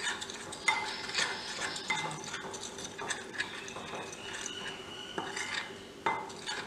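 Metal spoon stirring a dry flour and cornflour batter mix in a glass bowl, with irregular scraping and small clinks against the glass.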